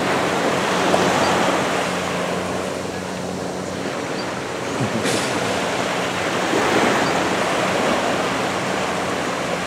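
Small waves washing onto a sandy beach, a steady surf noise that swells about a second in and again near the end, with wind on the microphone.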